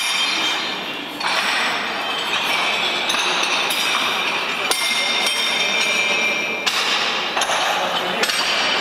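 Heavy iron face-shaped discs clanking and chinking against one another as people walk across them, a dense metallic clatter with many ringing notes. The clatter echoes in a tall bare concrete shaft.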